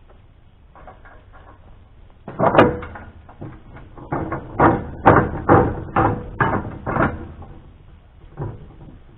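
Wooden boards knocking together as lumber is moved and stacked: a loud knock about two seconds in, then a run of about ten more over the next five seconds, and one last knock near the end.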